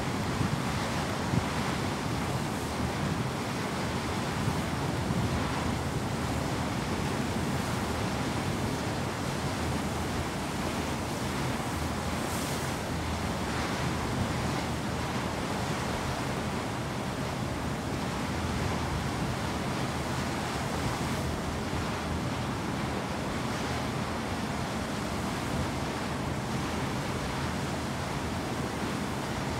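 Steady rush of sea and wind from a ship under way: water moving past the hull and wind blowing on the microphone.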